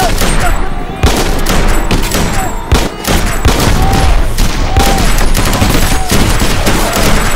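Continuous battle gunfire: a dense barrage of rifle and machine-gun shots, briefly easing just before three seconds in.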